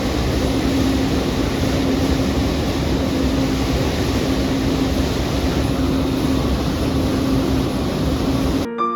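Steady machine noise: a constant hum over a loud, even rush, cutting off abruptly near the end as piano music begins.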